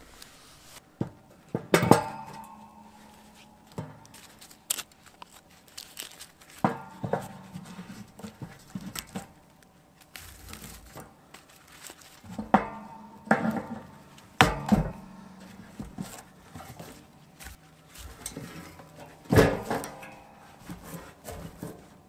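Metal knocks and clanks from handling a homemade sheet-metal box tent stove, as wing nuts are worked on its aluminium flag-pole leg fittings and wooden sticks are pushed in as legs. Irregular knocks every few seconds, several with a short ring from the stove's metal body, between rustling handling noise.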